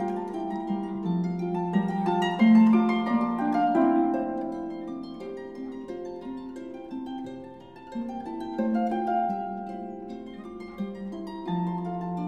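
Background music: a gentle melody of many overlapping sustained notes, with a brief dip in loudness about two-thirds of the way through.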